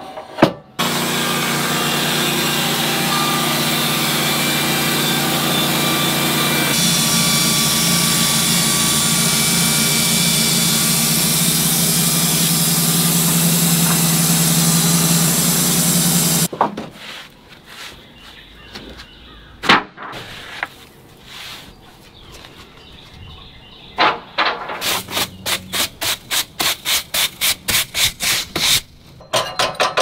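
A Wood-Mizer LT bandsaw mill running, its band blade edging a stack of boards: a loud, steady run of engine and saw that cuts off suddenly about sixteen seconds in. Near the end comes a quick, even run of clicks, about four a second, lasting several seconds.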